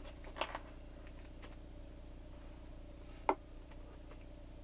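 Knife and fork clicking against a metal bowl while eating, a couple of clicks about half a second in and a sharper one a little past three seconds, over a faint steady hum.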